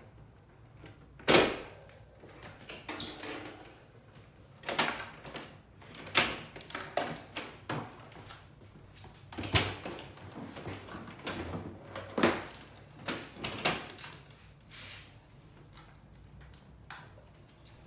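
Hard plastic knocks, bumps and scrapes as a misting fan and its black plastic caster base are handled, tipped over and fitted together. The loudest knock comes about a second in, with several more strong ones spread through.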